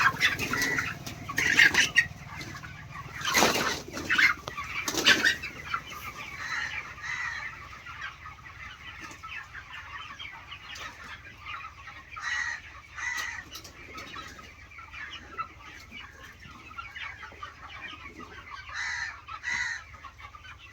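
A flock of broiler chickens clucking and calling over one another in a poultry shed, with a few louder outbursts in the first five seconds.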